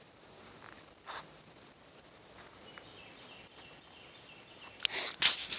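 Steady high-pitched insect trill in the background, with a short rustle about a second in and a few louder knocks or rustles just before the end.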